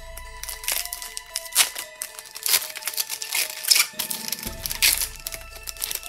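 Foil Pokémon booster pack wrapper being crinkled and torn open by hand, a run of sharp crackles, over background music.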